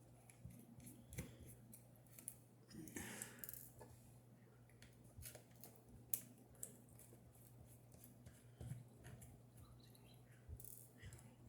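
Faint, scattered clicks and light scrapes of small tools and parts being handled during a phone disassembly, over a low steady hum.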